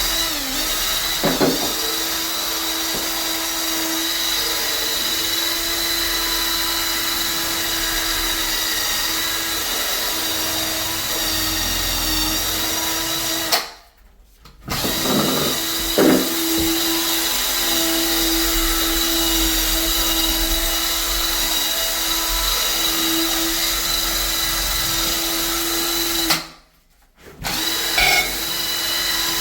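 Electric power drill running steadily, scrubbing shower grout during a deep clean for mould and mildew. The sound cuts out briefly twice.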